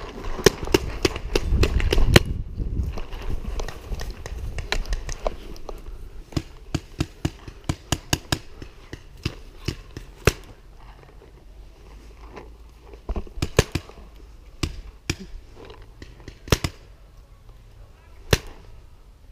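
Compressed-air paintball markers firing: sharp pops, single and in quick strings of about two or three a second, scattered through the whole stretch. In the first few seconds a heavy rumble of running and gear jostling lies under the shots.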